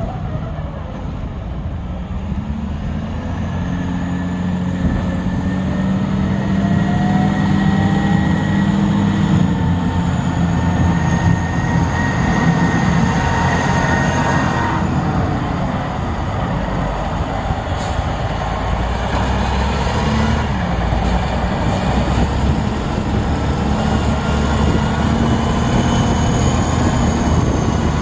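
Caterpillar 980B wheel loader's diesel engine working hard, revving up and easing off several times, with a whine that rises and falls along with it.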